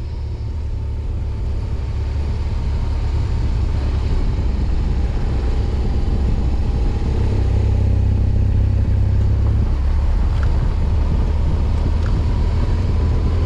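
BMW R1200GS Adventure motorcycle's boxer-twin engine running with a steady low rumble as the bike rides along, heard from on the bike; the rumble grows louder about halfway through.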